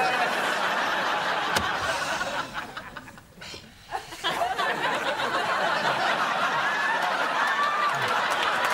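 Many people laughing together, a studio audience with the actor laughing among them. The laughter fades about three seconds in, then swells back up a second later.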